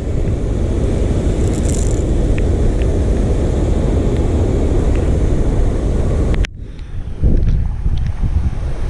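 Steady loud rushing of fast river current, mixed with wind buffeting the microphone. The sound cuts off abruptly about six and a half seconds in and resumes a little quieter, with a few low bumps.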